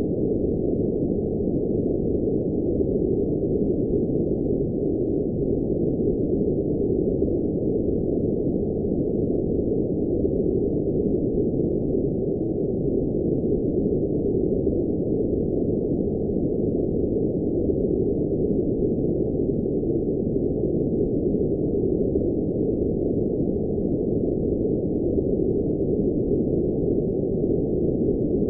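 Steady generated noise, sold as blue noise, at an even level throughout with no changes. It sounds muffled, holding nothing above a fairly low pitch.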